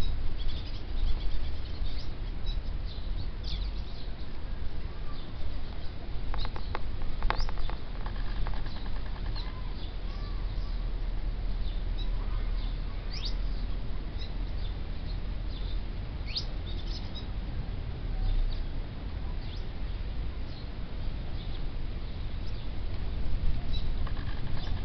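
Birds chirping on and off with short, high notes, a few of them quick sweeps in pitch, over a steady low rumble. A sharp click sounds a little after seven seconds.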